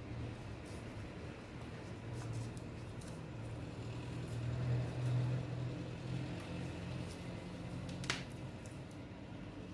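Industrial sewing machine's motor humming steadily as fabric is handled at the presser foot, the hum swelling about halfway through. A single sharp click comes about eight seconds in.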